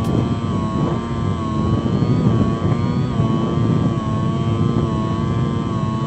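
Bix3 RC plane's electric motor and propeller whining at a steady, slightly wavering pitch over heavy wind rush, heard from a camera on the plane. The battery is running flat and the motor is short of power.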